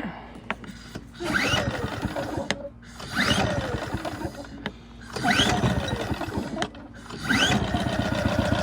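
Craftsman 2200-watt generator's small engine being pull-started on choke: four recoil pulls about two seconds apart, each a quick rising whine as the engine cranks. After the fourth pull the engine runs on steadily.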